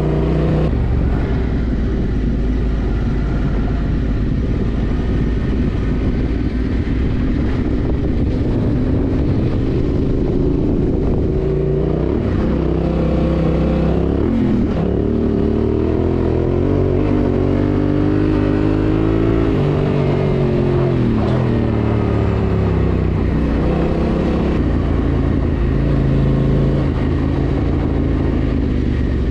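Yamaha Ténéré 700's 689 cc parallel-twin engine running under way on a ride, its note steady at first, then climbing and dropping several times in the middle as the revs go up and down.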